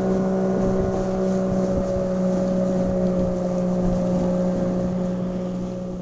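Tohatsu 50 hp jet outboard motor running steadily under way, a constant engine hum, fading out near the end.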